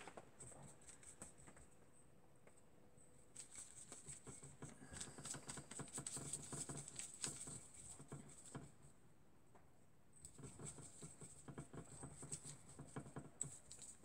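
Flat paintbrush dabbing and scrubbing paint on a palette while mixing a green: faint, quick pattering taps and scrapes in two spells, the first starting about three seconds in and the second about ten seconds in.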